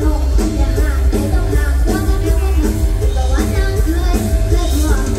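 Loud live mor lam music through the stage PA: a band with heavy, steady bass and a singing voice over it.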